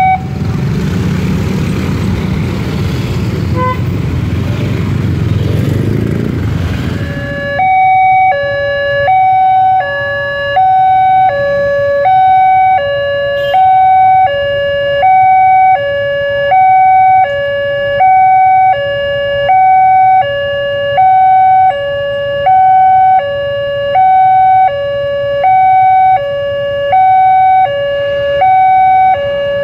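Railway level-crossing warning alarm sounding an electronic two-tone chime, a higher note alternating with a lower one about once every 1.4 seconds. For the first seven seconds or so a loud rushing rumble drowns it out, then stops.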